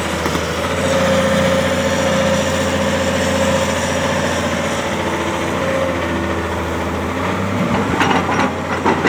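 Excavator's diesel engine running steadily while the arm works, with a held whine over it in the first few seconds. About eight seconds in, a bucketful of soil and stones thuds into the dump truck's steel bed.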